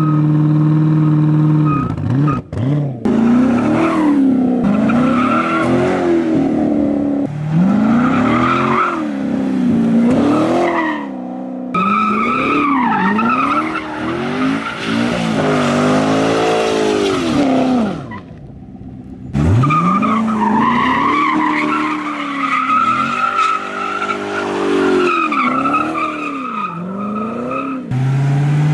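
Chevrolet Corvette C7's V8 revving up and down again and again while the rear tyres squeal and spin on asphalt in burnouts and donuts. The sound briefly drops away about two-thirds of the way through.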